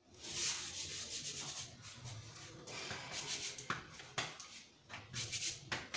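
Hands kneading dough for roti at a kitchen counter: soft, uneven rubbing and scraping, with a few light clicks.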